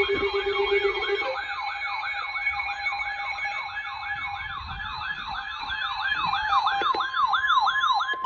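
Electronic siren alert sounding a fast yelp, about three sweeps a second, each rising quickly and falling back, over steady electronic tones. It settles into a single steady tone at the very end.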